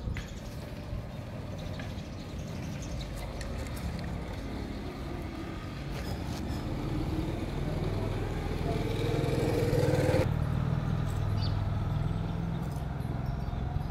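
Motor vehicle engine running nearby, a low rumble that grows louder, with a note rising in pitch that stops abruptly about ten seconds in while the rumble goes on.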